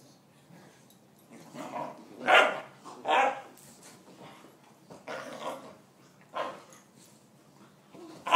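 Puppies barking and growling in play: several short, separate barks, the loudest about two seconds in and again a second later.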